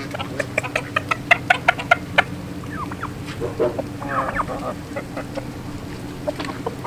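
Chickens clucking: a quick run of short clucks over the first two seconds, then a few longer, wavering calls a little past the middle.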